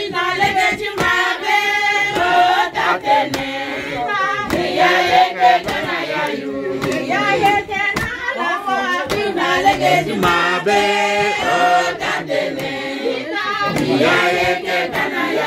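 A group of women singing together in chorus, with hand clapping.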